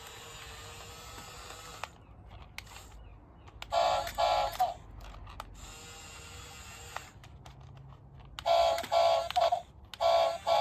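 Toy JCB excavator beeping: loud short electronic beeps, three about four seconds in and another run near the end. Between them a small electric motor whirs steadily.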